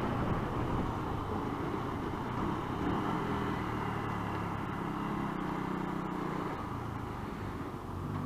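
Motorcycle engine running under way with wind and road noise as heard from a helmet-mounted camera; the engine note shifts a little in pitch through the middle.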